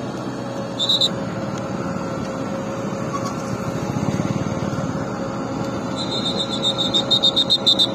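Vehicle engine idling steadily, with a brief high-pitched tone about a second in and a rapid high-pitched pulsing over the last two seconds.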